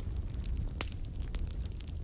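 Wood fire burning in a fireplace: a steady low rumble of flames with scattered crackles and pops from the burning logs, the sharpest pop a little under a second in.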